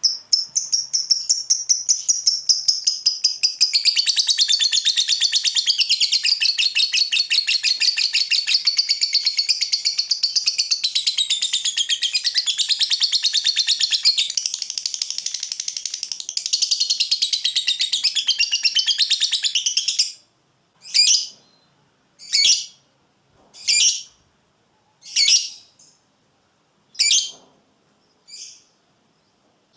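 Lovebird ngekek: a long, fast, unbroken chatter of high calls lasting about twenty seconds. It then breaks off into six short separate calls, about a second and a half apart.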